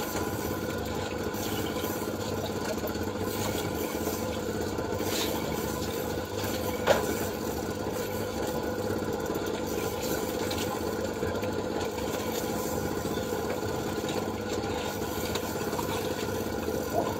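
An engine running steadily with an even hum, and a single sharp click about seven seconds in.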